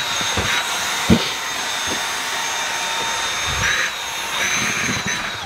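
Cordless handheld vacuum cleaner running steadily with a high whine as it sucks mosquitoes off bedsheets, with a brief knock about a second in. It winds down near the end.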